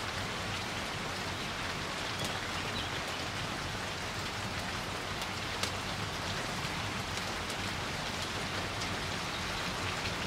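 Wood fire crackling: a steady hiss with scattered small pops, the sharpest about five and a half seconds in.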